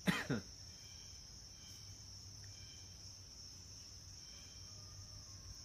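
Steady insect chorus, a continuous high trill with faint short chirps recurring about once a second. A brief bit of voice comes right at the start.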